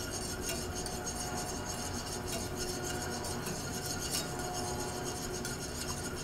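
Wire whisk stirring in a small stainless steel saucepan, with irregular light ticks and scrapes against the pan, as butter is whisked into a simmering red wine reduction to emulsify it.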